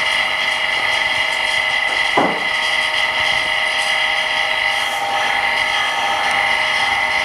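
Steady multi-tone whine of a small motor in a phone-screen repair machine, with a short scrape about two seconds in.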